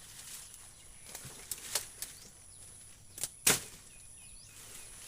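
Tree branches being chopped and broken up: a handful of sharp woody cracks and knocks at uneven intervals, the loudest about three and a half seconds in.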